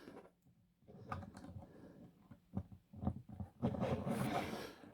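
Faint clicks and rubbing of the plastic parts of a Transformers Air Raid action figure as its guns are moved and plugged into place, with a longer rustle near the end.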